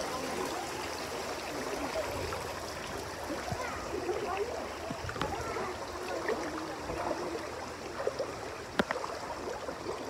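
Water swishing and flowing around people wading waist-deep through a lazy river, with faint voices of other bathers and one sharp tap near the end.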